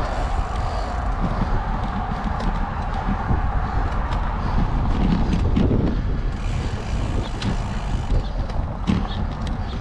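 Wind rumbling on the microphone of a bicycle-mounted camera, mixed with tyre-on-pavement noise, with scattered light clicks and rattles from the bike.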